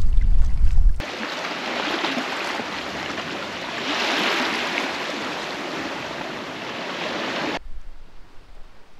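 Wind buffeting the microphone on a sea kayak under way for about a second. Then, after a sudden cut, a steady hiss of small waves washing on a sand-and-shingle beach, which drops away near the end to faint wind.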